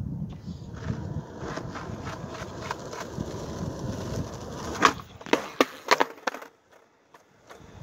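Skateboard wheels rolling on asphalt, then a sharp tail pop about five seconds in for a backside heelflip attempt, followed by several clacks of the board hitting the pavement before the rolling stops.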